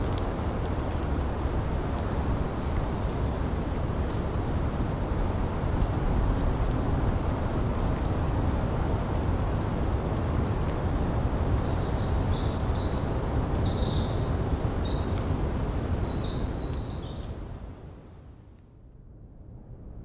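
Breeze through redwoods and hemlocks, a steady rushing over the low rumble of distant ocean surf, with fog moisture dripping from the needles. Small birds chirp in short, high calls, busiest in the second half, before it all fades out near the end.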